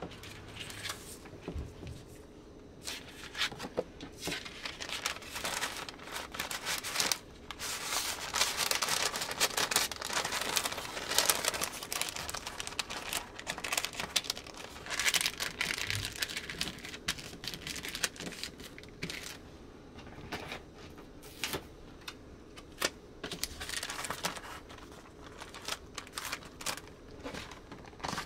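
A translucent paper bag and a paper art print being handled: paper crinkling and rustling with small clicks and taps, busiest from about a quarter to halfway through.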